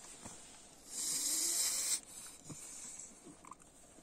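A pug breathing noisily: one hissing breath about a second long, starting about a second in.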